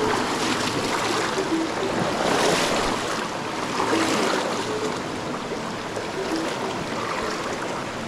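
Rushing creek water running over rocks, with splashing surges from legs wading through the shallow, fast-flowing current.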